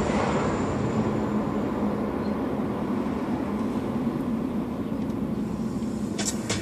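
Steady road and engine noise inside a slowly moving car. A run of sharp beats starts near the end.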